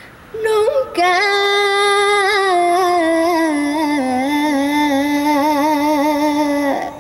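A woman singing live into a microphone through a PA system. She holds one long note with vibrato after a short opening phrase, and it steps down in pitch twice before she cuts it off near the end.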